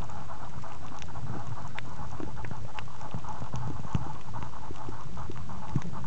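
Underwater sound picked up by a camera sealed in a soft plastic waterproof pouch: a steady muffled rumble and hiss with irregular sharp clicks and a few dull knocks.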